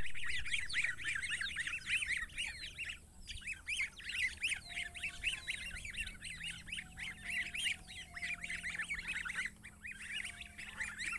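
A group of downy goslings peeping, many short high calls overlapping almost without pause, with a brief lull about three seconds in.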